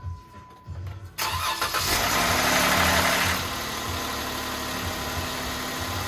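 Jeep Wrangler engine cranking and catching about a second in. It runs louder for a second or so, then settles into a steady idle. This is the first start after a valvetrain repair for an engine tick, with new pushrods and rocker arms fitted and two worn lifters found.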